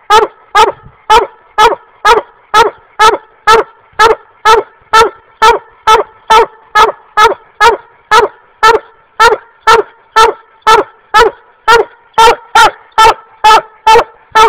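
Black and tan coonhound barking up a tree in a hard, rapid chop mouth, about two loud barks a second without a break: its tree bark, signalling treed game.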